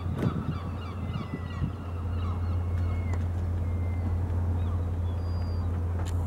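Birds calling, many short calls in the first half and only a few later, over a steady low hum.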